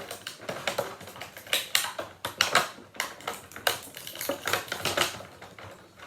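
Irregular plastic clicking and crackling as an action figure's plastic packaging and zip ties are worked by hand to free the figure.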